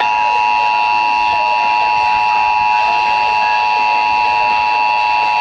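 Emergency Alert System attention signal: a loud two-tone alert held at one steady pitch, cutting in abruptly and holding without change.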